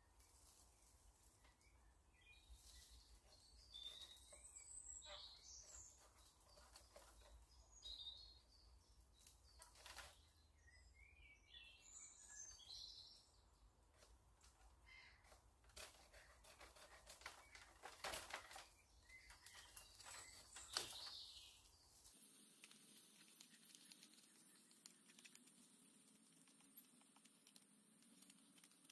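Woodland birds chirping faintly, with several sharp cracks and knocks as a green sapling is cut and broken in the undergrowth.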